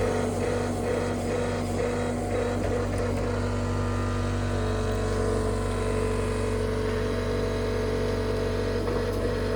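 Engine of a John Deere 325G compact track loader running at a steady speed, an even hum that holds its pitch, with some faint rattling in the first couple of seconds.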